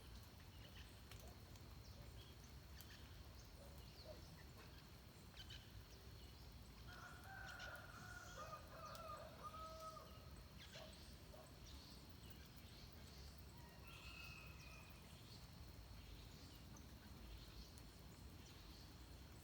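A faint rooster crowing, one drawn-out call of about three seconds a third of the way in, with a shorter, fainter call a few seconds later. Scattered short chirps of small birds and a low steady rumble run underneath.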